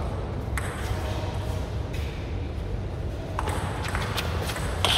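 Table tennis ball ticking off paddles and table as a doubles rally gets going: a few sharp, irregularly spaced clicks, coming closer together in the second half.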